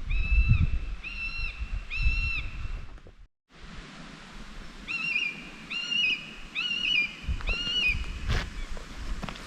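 A bird calling repeatedly in clear, plaintive whistled notes, each about half a second long, with a low rumble of wind on the microphone beneath the first few calls.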